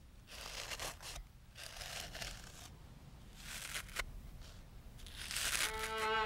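A small paper or plastic wrapper being crinkled and torn open by hand in several short rustling bursts, with a sharp snap about four seconds in. Bowed violin music comes in near the end.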